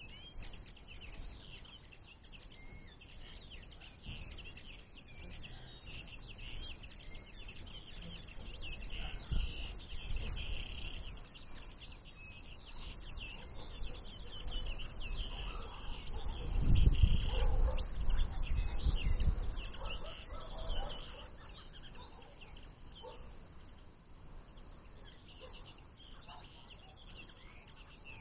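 Small songbirds chirping and twittering continuously in many quick, overlapping calls. A low rumble swells for a few seconds past the middle and is the loudest sound there.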